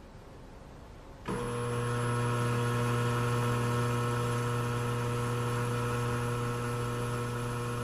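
Ultrasonic cavitation horn switching on suddenly about a second in and running with a steady hum and overtones, with a faint high whine above. The horn is driving cavitation bubbles in water against a rock sample to erode it.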